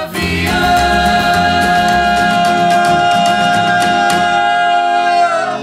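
Acoustic string band in an Americana, bluegrass-ish style (acoustic guitars, upright bass, mandolin) playing, with voices singing one long held note in harmony over a steady bass pulse. The held note and the band stop together just before the end, as the song finishes.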